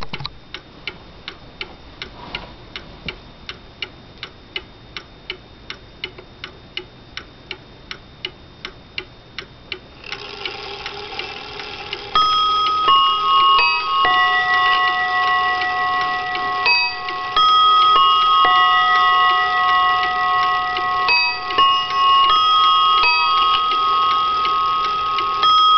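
Seth Thomas mantel clock movement from around 1900 ticking about three times a second. About ten seconds in, the chime train starts to whir, and about two seconds later the Sonora chime begins a quarter-hour melody of long ringing notes, a little out of tune.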